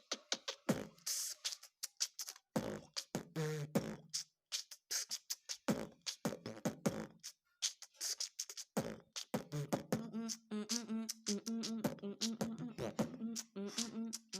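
A man beatboxing an imitation of rock music with his mouth: a fast run of sharp kick, snare and hissing cymbal sounds, with a pitched hummed tone joining under the beat about nine seconds in.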